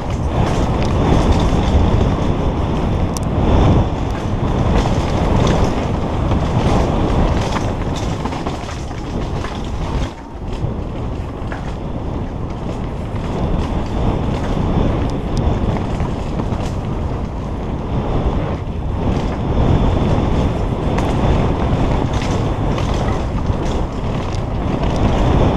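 Wind rushing over a helmet-mounted camera on a downhill mountain-bike run, with the bike clattering and rattling over a rough dirt trail. The noise is steady and loud, briefly easing about ten seconds in.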